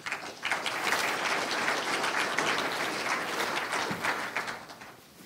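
Audience applauding, starting just after the start and dying away near the end.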